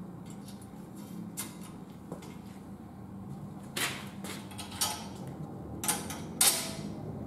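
Metal tree-stand rail and its curved hanger pieces clinking and knocking as they are worked into place by hand: a handful of sharp clicks, the loudest in the last two seconds, over a steady low hum.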